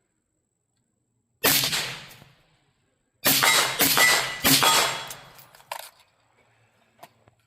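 Suppressed shots from an 11.5-inch-barrel rifle with a Ridgeback Rhodie 6 suppressor. One shot comes about a second and a half in, then more follow close together around three to four and a half seconds in. Each is a sharp report with a fading echo.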